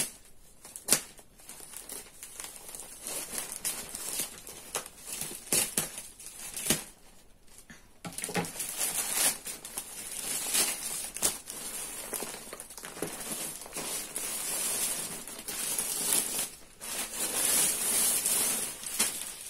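Thin plastic bag crinkling and rustling as it is snipped open with scissors and the plastic-wrapped crib bedding is pulled out. A few sharp snips come in the first seconds, then denser, louder rustling from about eight seconds in.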